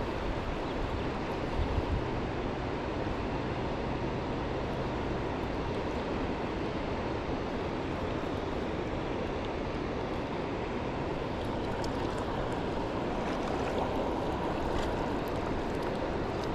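Steady rush of the Upper Sacramento River running high and fast with snowmelt.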